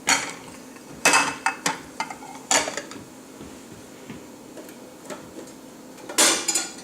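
Dishes clattering and clinking as a dishwasher is unloaded: several sharp, ringing knocks, the loudest about a second in and again near the end.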